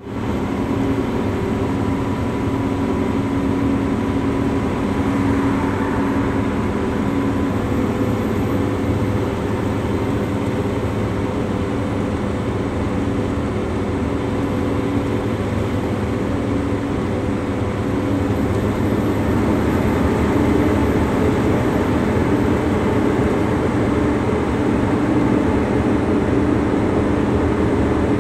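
Steady engine and tyre noise heard from inside a vehicle's cab while cruising on a motorway: an even road rush with a low, steady hum.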